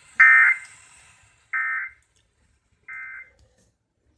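Emergency Alert System end-of-message tones: three short buzzing digital data bursts about a second apart, each quieter than the last, marking the end of the alert test broadcast.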